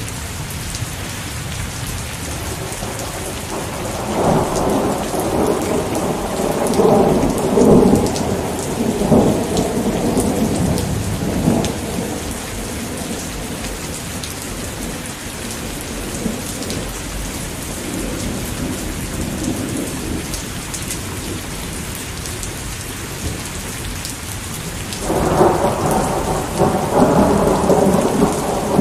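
Steady heavy rain with thunder: a long rumble from about four seconds in to about twelve, and another beginning near the end.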